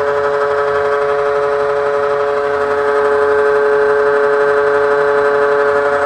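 Failing 1999-made toilet ventilation fan running with a loud, steady droning hum, one strong unwavering tone with many overtones, like a motorbike engine; the noise is the sign of the ageing fan breaking down.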